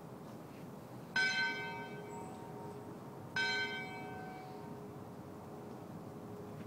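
Church bell tolling a funeral toll: two strikes a little over two seconds apart, each ringing on with a long, slowly fading hum.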